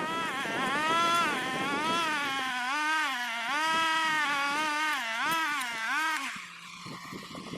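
Small petrol engine of a lawn-care power tool revving up and down repeatedly as the throttle is worked, then dropping to a lower, quieter idle about six seconds in.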